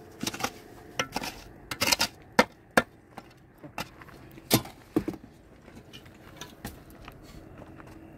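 Irregular sharp knocks and clinks of hard objects, about a dozen strikes at uneven intervals and loudest in the first half, over a faint steady low hum.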